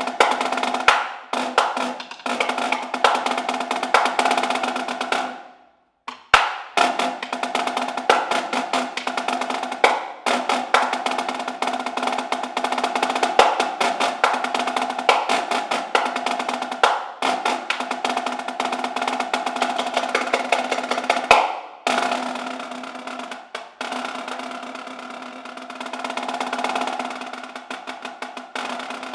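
Solo snare drum played with sticks in fast rudimental patterns and rolls. It stops briefly about six seconds in and again near twenty-two seconds. The last part is softer, with a roll that swells and then fades near the end.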